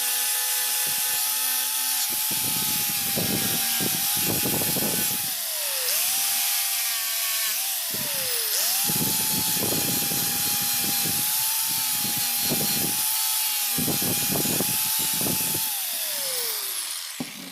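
Small high-speed electric power tool running with a steady whine, with repeated rasping bursts as it is pressed to the work. Its motor spins down and starts up again twice, and spins down a last time near the end.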